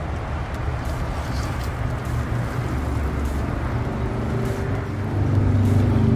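Low, steady rumble of a motor vehicle's engine running close by, growing louder near the end.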